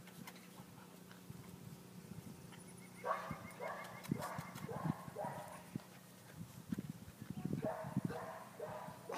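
English Springer Spaniel puppies yapping in a run of short barks, starting about three seconds in at roughly two a second, pausing briefly near the middle, then starting again.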